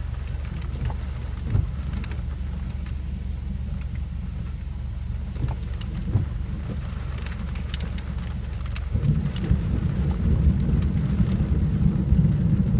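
Rain falling on a car's roof and windshield in scattered ticks, heard from inside the closed car, over a steady low rumble. The rumble of thunder grows louder about nine seconds in.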